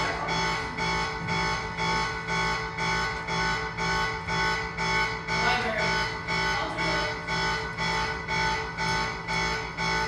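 Burglar alarm sound effect played over speakers: a loud electronic tone of several fixed pitches at once, pulsing about twice a second without a break.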